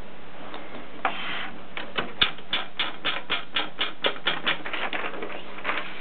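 Adler Gabriele typewriter being typed on: keys and typebars striking the paper in an even run of about four clacks a second, starting about a second in and stopping just before the end.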